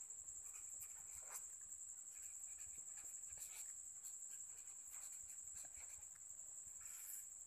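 Faint scratching of a marker pen writing on paper, in short irregular strokes, over a steady high-pitched whine.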